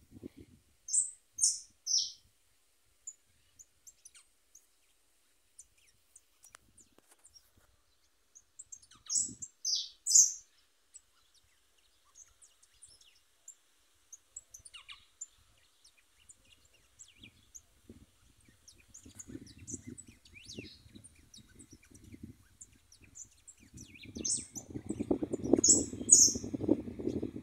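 A caged chiviro, a wild-caught songbird, singing short phrases of two or three loud, high, falling notes about a second in, around nine seconds in and again near the end, with soft chirps between. It is singing for the first time after about three months in captivity. A low rumble runs under the last few seconds.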